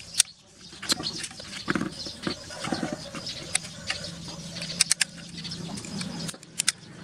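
Scattered metallic clicks and taps of an open-end wrench on the clamp-bolt nuts of a submersible water pump's housing, over a steady low hum.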